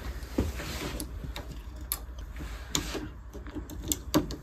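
Batteries being swapped in a small battery-powered device: a string of irregular light clicks and taps as batteries and the plastic battery compartment are handled.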